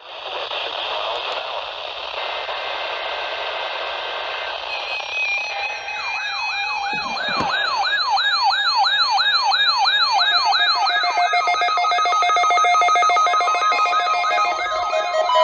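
Electronic alert audio: a burst of harsh data-like hiss, then a siren-like tone warbling up and down about two to three times a second. Steady stepped beeping tones join it in the last few seconds.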